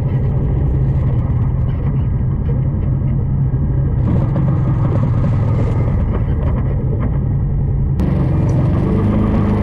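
ATV engine running steadily under way, its pitch rising near the end as it revs up. The sound changes abruptly twice, as if separate clips are cut together.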